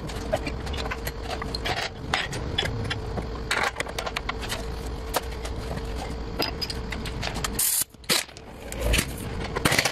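Scattered light metallic clicks and clinks of hand tools and bolts being handled at a car's front lower control arm mount, over a steady hum that cuts off about seven and a half seconds in.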